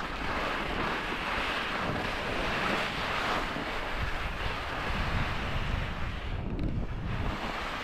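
Skis hissing and scraping over firm, wind-packed snow during a descent, with wind buffeting the microphone. The hiss eases briefly about six and a half seconds in.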